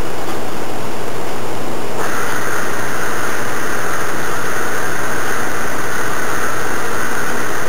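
Loud, steady, harsh noise of unidentified origin, presented as an unexplained noise recorded during a ghost hunt; a higher, rasping layer joins about two seconds in.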